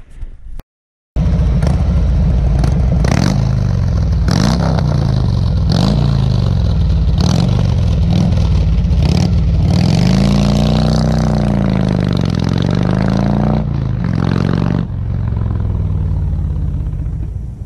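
Vehicle engine revving over and over, its pitch swinging up and down, with a longer rise and fall about ten seconds in. It starts after a brief silence about a second in and cuts off suddenly at the end.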